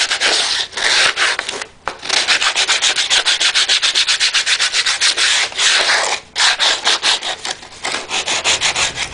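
Sandpaper rubbed by hand over the edge of a speaker ring in quick back-and-forth strokes, several a second, with a few short pauses. The sharp edges of the ring are being rounded off and stray glue knocked down.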